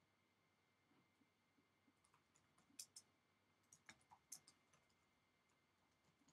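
Near silence: faint room tone with a faint steady high hum and a scattering of faint short clicks, a few of them clustered around the middle.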